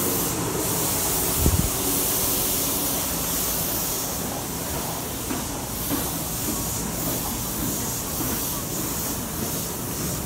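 Steady rumble and hiss of a busy subway station platform, with a crowd of commuters moving along it toward an escalator. A low bump about one and a half seconds in.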